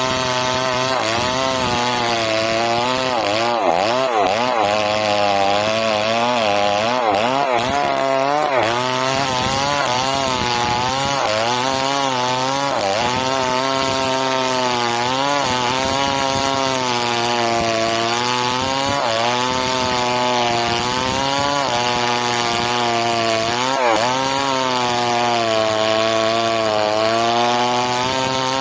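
Two-stroke chainsaw cutting through a felled sengon (albizia) log, running continuously at high revs. Its engine pitch repeatedly dips and rises again as the chain bogs under the load of the cut.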